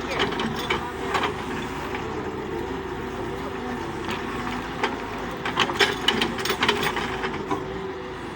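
Doosan DX140W wheeled excavator's diesel engine running steadily as the machine works, with sharp clicks and knocks, clustered about five to six and a half seconds in.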